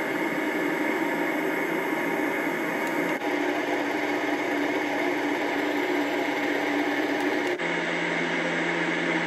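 Magicteam white noise machine playing its steady noise sounds through its small speaker. It switches abruptly to a different noise about three seconds in, and again near the end, to one with a steady low hum and less hiss.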